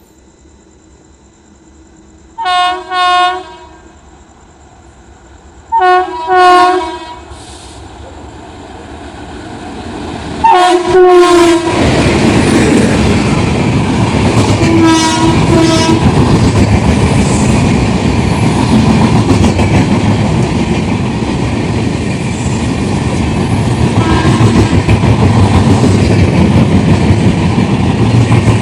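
An approaching Indian Railways locomotive sounds its horn: two short double blasts, then a longer blast. About a third of the way in, the train passes at speed, its wheels clattering over the rail joints, and the horn sounds once more during the pass.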